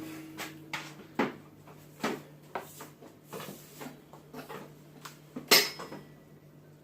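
Scattered small knocks and clicks of a rotary tool and its cord being handled and positioned, the tool not yet running. One louder clack about five and a half seconds in rings briefly.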